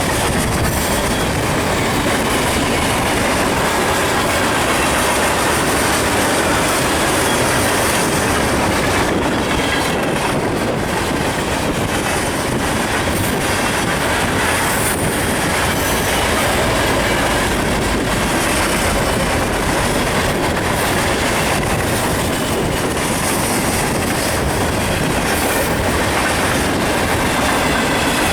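Freight train rolling past at close range: a steady, loud, continuous rumble and clatter of wheels on the rails.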